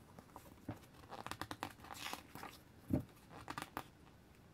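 Pages of a small paper booklet being handled and turned: faint paper rustles and flicks, with one dull knock about three seconds in.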